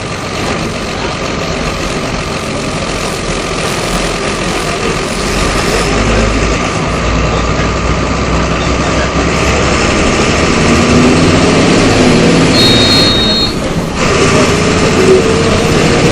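Volksbus 17.210 EOD's MWM 6.12 TCAE turbodiesel engine running under load and growing louder, its pitch climbing in the second half, with a brief dip near the end before it climbs again.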